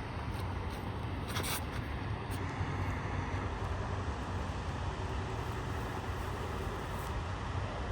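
Steady low outdoor rumble of background noise, like distant road traffic, with a brief hissing rustle about a second and a half in.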